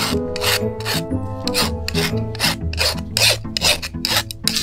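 Hand file rasping along a sickle blade in quick back-and-forth strokes, about three a second, sharpening the blade, over steady background music.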